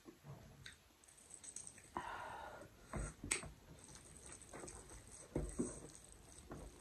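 Fingers squishing and kneading rice with dal on a tray: faint wet squelches and small sticky clicks, with a couple of sharper clicks about three seconds in.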